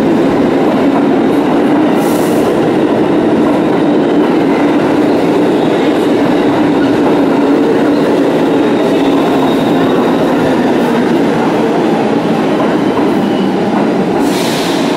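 R160 subway train running past along the platform, a loud steady rumble of wheels on rail, with a brief hiss about two seconds in and another near the end.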